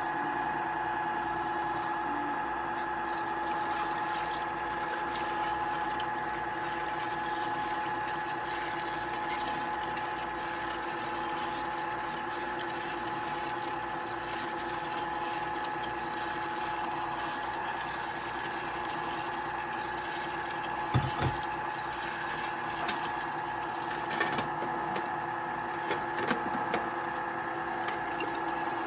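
KUMIO 1.2-quart compressor ice cream maker running with a steady, even-pitched mechanical hum. A few light clicks and knocks come in the second half.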